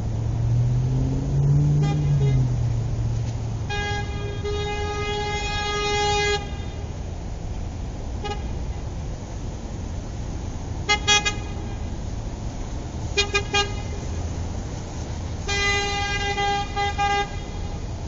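A car horn honking over a steady low traffic rumble. There is one long honk of about two and a half seconds, then a short blip, two quick toots, a rapid burst of three short toots, and another long honk near the end, all at the same pitch.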